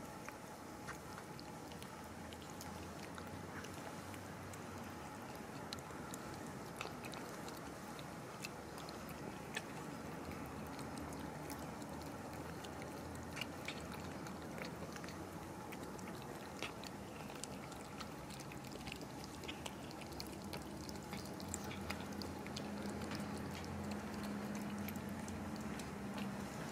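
Cats crunching dry kibble, a run of small irregular crunches and clicks over a steady low background hum.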